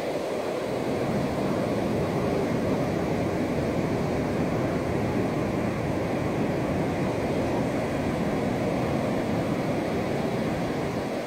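Ocean surf breaking offshore and washing up a flat sandy beach: a steady rush of broken waves that swells slightly about a second in.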